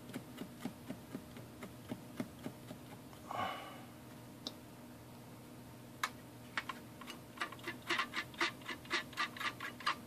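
Metal battery contact clip being scrubbed with a small abrasive tool to clean it so solder will take: scattered scratchy strokes that quicken to about four or five a second in the second half. A short hiss about a third of the way in.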